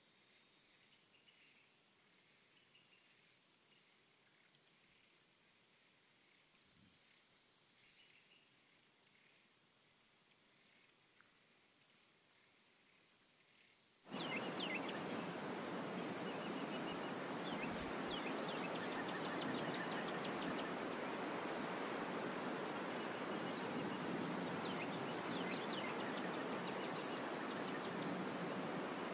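Outdoor wildlife ambience: a faint steady high-pitched tone with scattered soft chirps. About halfway in it switches abruptly to a much louder, dense forest hiss with short chirps on top.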